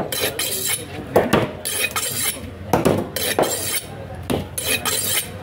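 Sharp metallic knocks and clinks from a large fish-cutting knife, coming irregularly about once or twice a second.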